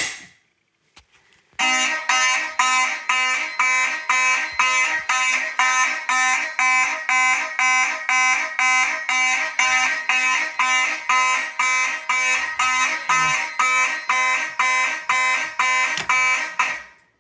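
Fire alarm horn sounding a buzzy tone in rapid pulses, about two and a half a second, from the system going into alarm during a device test. It starts about a second and a half in and cuts off just before the end, after a short click at the very start.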